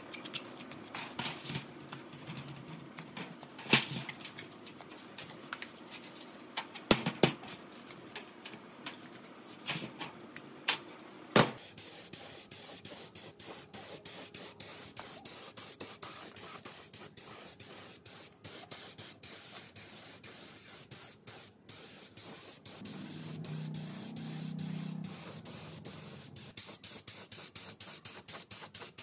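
A brush scrubs an air-compressor crankshaft in a tray of cleaning solvent, with scraping and a few sharp metal knocks. From about a third of the way in, a gravity-feed paint spray gun hisses as paint goes onto the compressor crankcase, with many brief breaks as the trigger is pulled and released.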